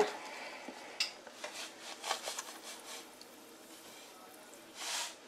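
Salt being added to water in a large steel pot: a sharp clink about a second in, a few faint taps of a spoon or container on the metal, and a brief hiss near the end.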